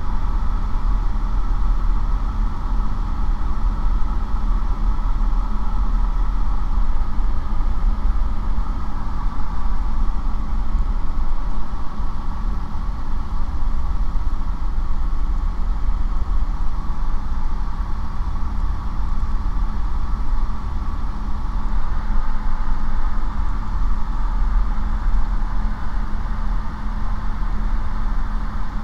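Steady drone of a light aircraft's piston engine and propeller in level cruise flight, even in pitch and loudness.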